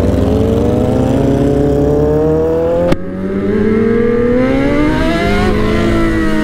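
Suzuki GSX-R 600 inline-four sport bike accelerating hard, its pitch climbing steadily, breaking off sharply with a click about three seconds in, then climbing again. Near the end the throttle closes and the pitch falls, while a second sport bike's engine is heard alongside.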